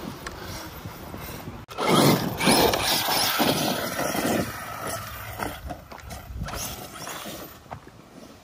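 Arrma Kraton 8S electric RC monster truck driving over dirt and gravel. From about two seconds in there is a loud stretch of tyre and drivetrain noise that fades over the last few seconds.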